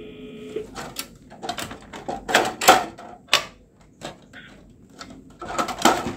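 Clicks, taps and light rattles of the sheet-metal riser bracket and plastic latches being handled and seated inside an open rack-server chassis. There is a cluster of louder knocks about two and a half seconds in and another near the end.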